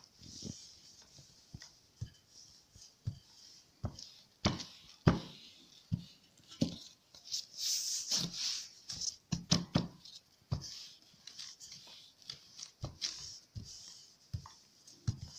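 Wooden rolling pin rolling out a sheet of dough on a table: irregular soft knocks and thuds as the pin is pushed and set down, some in quick clusters, over a faint steady hiss.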